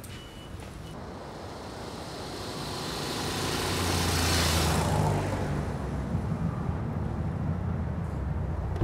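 Road traffic: a vehicle passes with a rising and falling whoosh that peaks about four and a half seconds in, followed by a steady low engine rumble as a car slows and pulls up.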